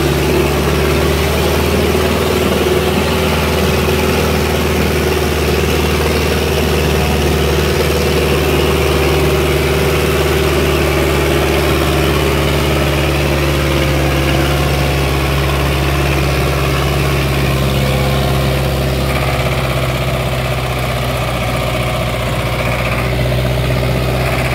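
Sonalika DI 750 tractor's diesel engine working steadily under heavy load as it drags a 22-disc harrow through the soil, its pitch holding level throughout.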